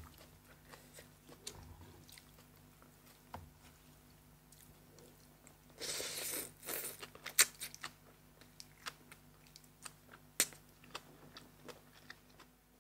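Close-miked chewing and crunching of food, faint, with scattered sharp clicks of the mouth and a louder burst of crunching about six seconds in.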